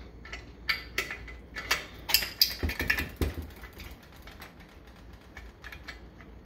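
Metal clicks and clinks of a valve removal tool being fitted and pinned onto a Jacobs R-755 cylinder, steel tapping on steel. The clinks come quickly in the first three seconds or so, loudest near the middle, then die down.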